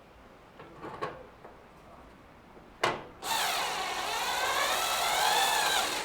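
Cordless driver running a screw into the dryer's sheet-metal panel for about three seconds, its motor whine wavering in pitch as the load changes, after a sharp click just before it starts and a few light knocks earlier.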